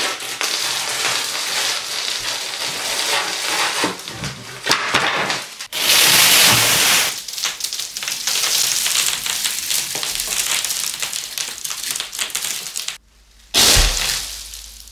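Dry spaghetti crunching and snapping as a head is forced through it: a dense crackle of many small breaks, loudest at about six seconds in. Near the end, after a brief pause, a short burst of snapping with a thump.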